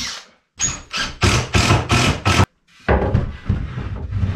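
Cordless drill driving a screw into timber in about six short, loud bursts, followed by a longer stretch of steady noise.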